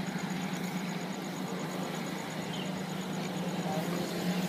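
Steady street traffic of motorbikes crossing a railway level crossing: small engines running and passing, with a constant low hum.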